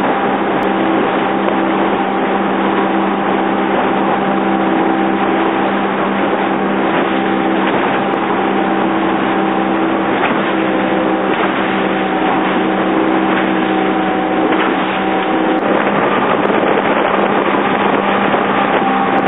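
Outboard motor of a small boat running steadily under way, a constant hum over a rushing noise of water and wind; the hum shifts slightly about three-quarters of the way through.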